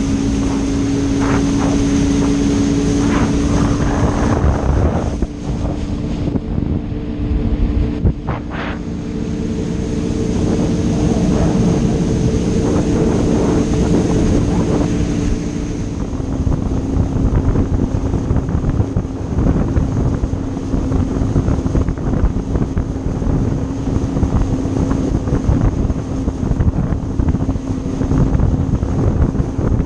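An engine running steadily, with wind noise on the microphone; its pitch drops slightly about halfway through.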